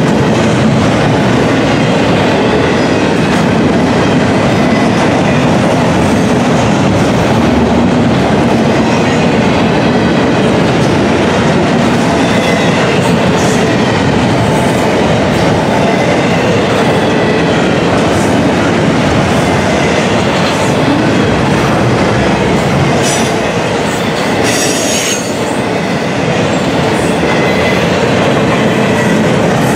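Double-stack intermodal freight cars rolling past on steel rails: a steady, loud rumble and clatter of wheels over the track. Brief high metallic squeals from the wheels come through a couple of times, most strongly about three-quarters of the way through.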